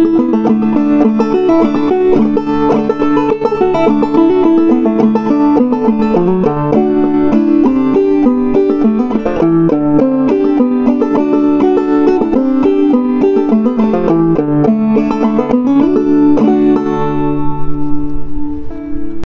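Gold Tone CC-Carlin 12 open-back banjo played clawhammer style: a quick old-time reel full of hammer-ons and pull-offs. Near the end it closes on a final chord that rings out.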